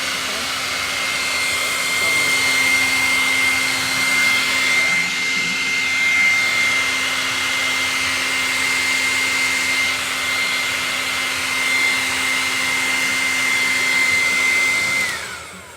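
Hair dryer running steadily: a rush of air with a high motor whine. It is switched off near the end, its whine falling away as the motor spins down.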